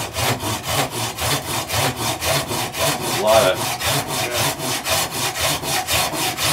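A dull Silky Sugoi pull-saw blade, without its handle, sawing back and forth through a block of hardwood in rapid, even strokes, about four a second.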